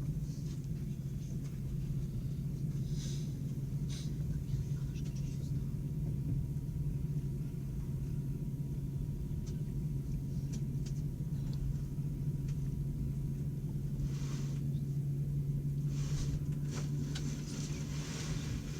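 Steady low hum and rumble inside a passenger train carriage, with a few short hisses about three, four and fourteen seconds in and again near the end.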